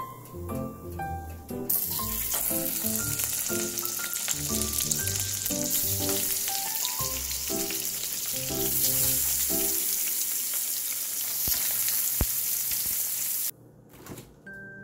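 Slices of luncheon meat sizzling in hot oil in a frying pan, starting about two seconds in and cutting off suddenly near the end, with light background music with plucked notes underneath.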